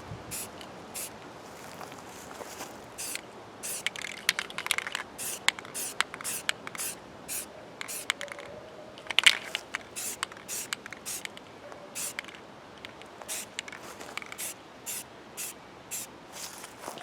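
Aerosol spray-paint can sprayed in many short hissing bursts, a louder one about nine seconds in.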